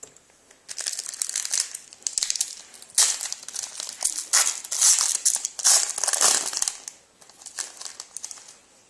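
Foil trading-card pack wrapper being torn open and crinkled by hand, in repeated crackly bursts from about a second in until near the end, loudest in the middle.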